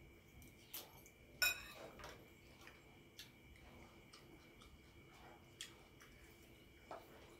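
Spoons tapping and scraping against bowls, a few scattered clicks with the loudest about a second and a half in, amid quiet eating sounds.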